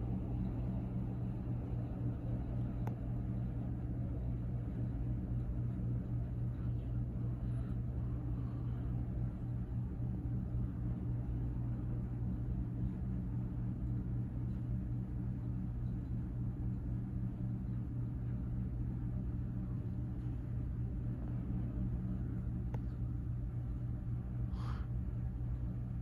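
Leslie Locke Play It Again Sam ceiling fan running steadily, its motor giving an even, low hum.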